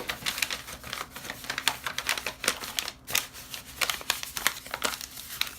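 Packaging being handled: a quick, irregular run of clicks and taps with some crinkling.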